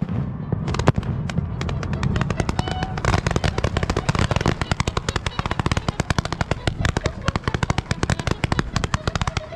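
Professional fireworks display: two sharp bangs in the first second, then a dense, rapid string of firework reports and crackles that keeps going.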